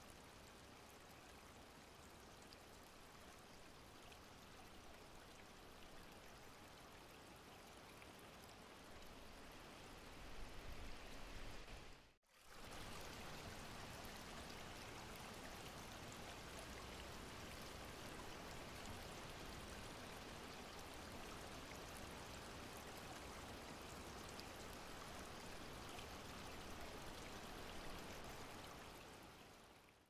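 Faint, steady rush of water from a partly frozen waterfall, with water still falling through and behind the ice. It cuts out briefly about twelve seconds in, comes back a little louder, and fades out near the end.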